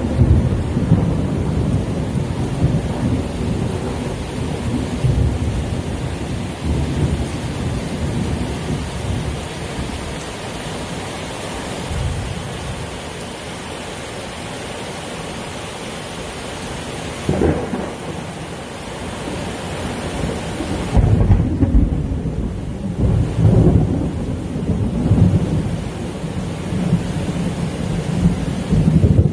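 Heavy rain falling steadily with thunder: low rumbling at first, a short sharp clap a little past the middle, then a long, loud rolling rumble with several surges through the last third.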